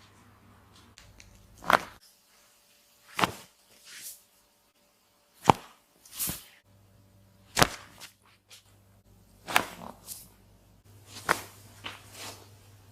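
Neck and back joints cracking: about six sharp cracks roughly two seconds apart, most followed within a second by a fainter second crack.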